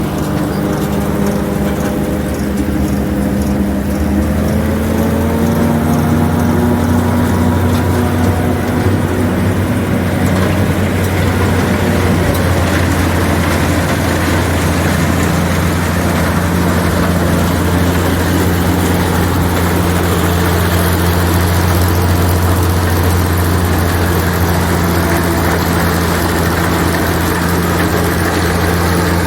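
Tractor engine running a forage harvester chopping maize for silage. The engine pitch rises a few seconds in, then holds steady and heavy under a dense rushing noise from the machinery.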